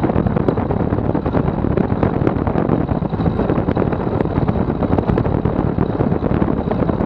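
Steady, loud wind buffeting on the microphone mixed with the running of a Maule M7-260 amphibious floatplane's six-cylinder Lycoming engine, as the plane moves across the water throwing spray off its float.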